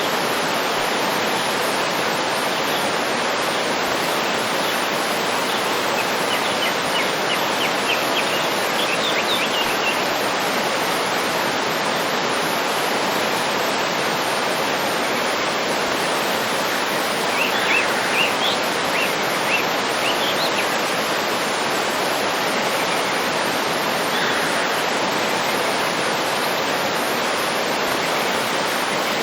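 Waterfall rushing steadily, with small birds chirping in short runs about six to ten seconds in and again around seventeen to twenty-one seconds in.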